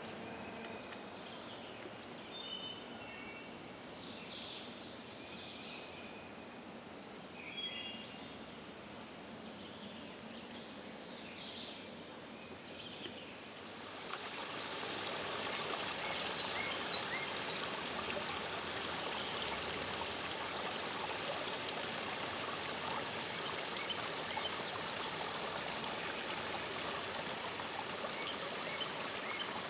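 Forest creek water running steadily, with a few birds calling over it in the first part. About halfway through, the water sound grows louder and fuller and stays that way.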